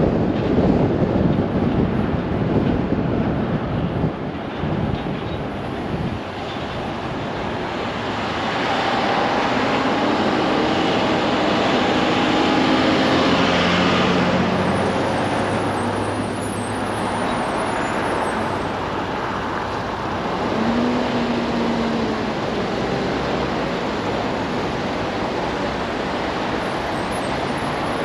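Low wind rumble on the microphone while the vehicle moves, dying down over the first several seconds as it comes to a stop. Then road traffic: cars and a box truck pass across the intersection ahead, their engine hum swelling and fading as each goes by.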